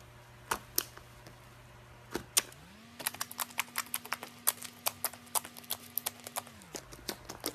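A rapid run of sharp clicks, a few scattered at first and then several a second, over a steady low hum that steps up in pitch partway through and drops back near the end.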